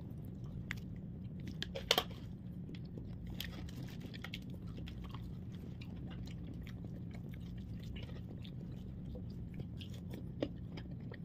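Close-up biting and chewing of crispy fried chicken, with crisp crunches and scattered clicks; the loudest crunch comes about two seconds in. A steady low hum runs underneath.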